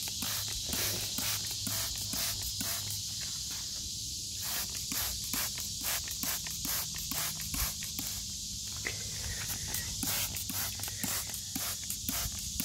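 Hand-held trigger spray bottle squirting soapy water, many short hissing sprays in quick succession that come thicker after a few seconds.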